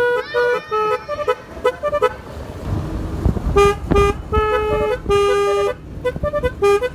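Basuri snail-type telolet horn playing a tune: quick short toots hopping between two close pitches, with a few longer held notes after a break near the middle. During the break a low rumble is heard.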